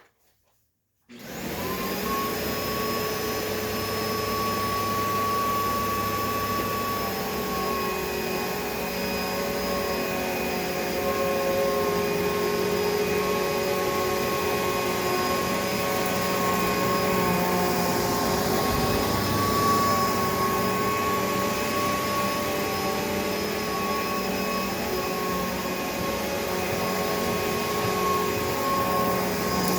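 2007 Hoover Elite Rewind upright vacuum cleaner switched on about a second in, spinning up at once and then running steadily with a whine of several steady tones over a rushing air noise. Its motor has just been torn down and cleaned of grass, and it runs much quieter for it.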